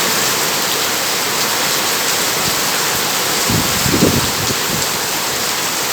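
Heavy, torrential rain pouring down in a steady, dense hiss, with a brief low rumble about three and a half to four seconds in.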